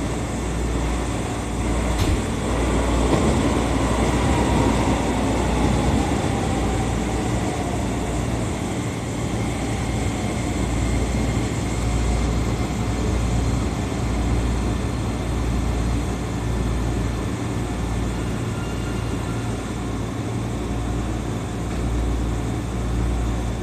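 An electric commuter train runs in on the next track and passes close alongside, rumbling, with a motor whine that falls in pitch. Beneath it is the steady low hum of the standing train's cab.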